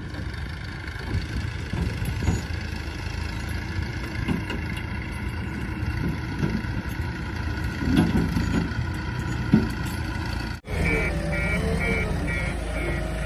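JCB 3DX backhoe loader's diesel engine running steadily. After an abrupt cut about ten and a half seconds in, the engine runs on with a reversing alarm beeping rapidly and repeatedly.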